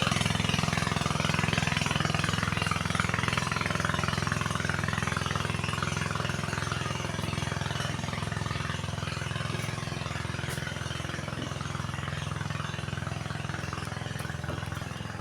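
Small engine running steadily with a rapid pulsing beat, slowly getting quieter.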